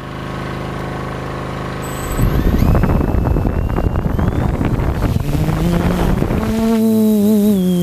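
Quadcopter drone's electric motors and propellers spinning steadily at low speed, then throttling up about two seconds in with a loud rush of propeller wash and a pitch that climbs, settling into a steady, slightly wavering buzz near the end as it flies.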